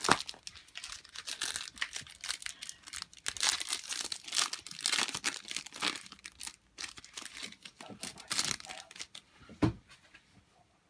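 Trading card pack wrapper being torn open and crinkled in irregular bursts, with a single knock near the end.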